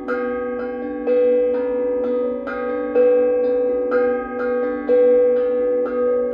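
Two steel tongue drums, both tuned to B-minor scales, played together with mallets in a duet: quick struck notes that ring on and overlap into a harmony, with a louder mid-pitched note coming back about once a second.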